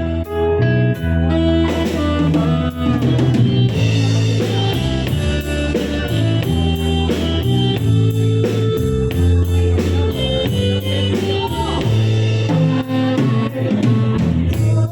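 Instrumental break of a pop ballad backing track: a guitar melody over bass and a steady drum-kit beat, with no singing.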